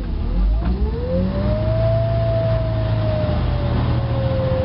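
The Snowbear ice-fishing trailer's lowering motor running under load as the house is let down onto the ice. It starts with a whine that rises in pitch about half a second in, holds, then sags slightly, over a steady low hum.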